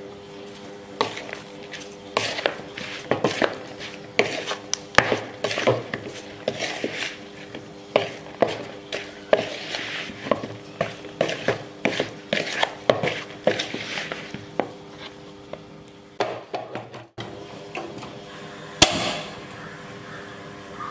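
A spoon knocking and scraping against a plastic bowl in irregular taps as raw prawns are mixed with spice powders, over a steady low hum. A single sharp click comes near the end.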